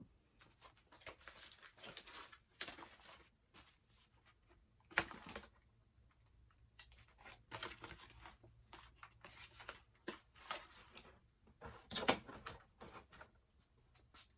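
Doll packaging being handled: irregular rustling and crinkling, with louder crackles about five seconds in and again about twelve seconds in.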